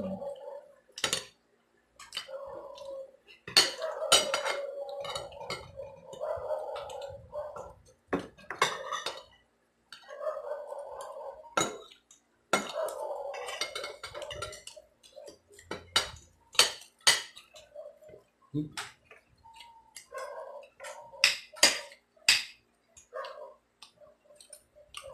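Metal spoons and forks clinking and scraping on ceramic dinner plates while people eat, with many sharp clinks throughout. Quieter eating sounds run between the clinks.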